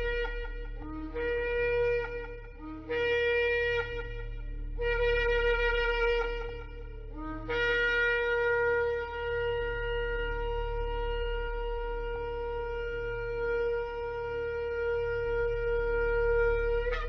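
Shofar (ram's horn) blown: four short blasts, then one long blast held about nine seconds. Each blast opens with a brief lower note before jumping up to the main pitch.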